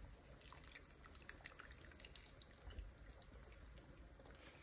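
Faint dripping and trickling of broth running off a wire strainer of spice bags back into a stockpot of simmering pho broth, many small irregular drops.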